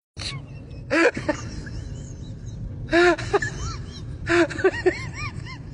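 Short, high vocal cries, each rising and falling in pitch, come in bursts about a second in, near three seconds and twice more near the end, over a steady low rumble.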